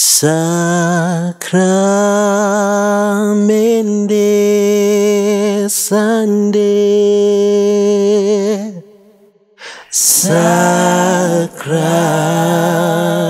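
Three men singing a Shona Catholic hymn a cappella in harmony, holding long notes with vibrato. The singing breaks off for about a second two-thirds of the way through, then comes back in.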